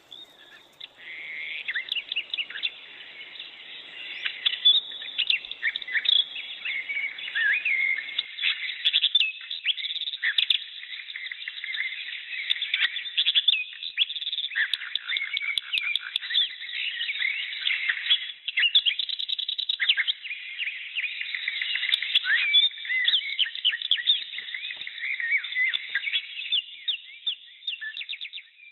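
Dense, continuous chorus of birds chirping and twittering, with many quick overlapping calls and sweeping notes.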